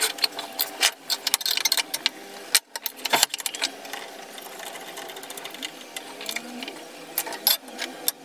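Rapid metallic clicking and rattling from hands working a bench drill press: the table being set and clamped on its column, then a bit being handled in the chuck. The clicks are dense for about the first three seconds, with a few more near the end.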